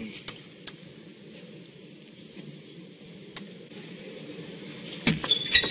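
Quiet arena ambience with a few sharp, isolated ticks of a table tennis ball, then louder noise starting near the end.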